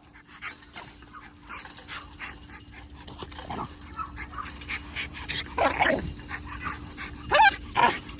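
Young American pit bull terrier puppy giving a few short barks and yips, the loudest two close together near the end, over scattered clicks and scuffling and a faint steady hum.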